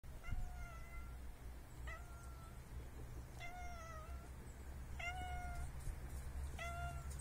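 Tabby cat meowing five times, drawn-out meows about one every second and a half, over a steady low hum.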